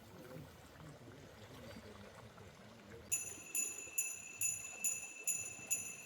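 Jingle bells shaken in a steady beat, about two shakes a second, starting about halfway through after faint background hiss, as the lead-in to a music track.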